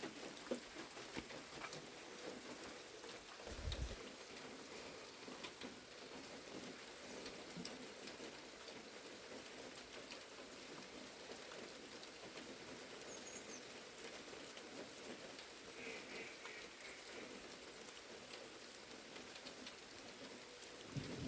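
Light rain falling, a faint even hiss of drops, with a brief low thump about four seconds in.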